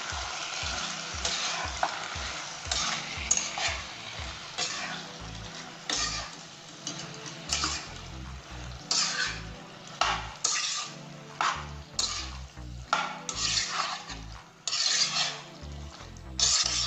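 A metal spatula stirring and scraping raw chicken pieces around a hot oiled kadai, in irregular strokes about once a second, over the sizzle of the meat frying.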